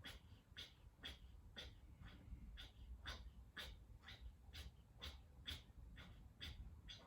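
Kapalabhati breathing: short, forceful exhalations pumped out through the nose, faint and in an even rhythm of about two a second.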